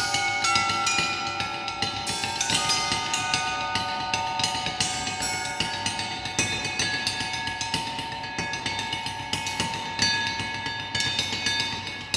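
Free percussion playing on steel sound sculptures: a dense patter of quick strikes over several long ringing metal tones that hold and overlap.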